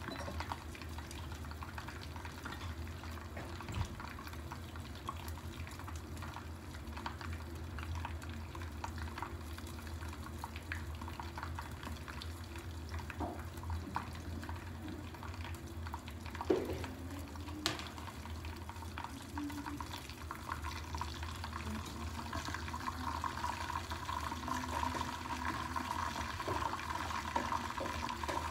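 Fish and eggs frying in oil inside covered pans: a steady, muffled sizzle with scattered small crackles of spitting oil, and one sharper tick a little past halfway.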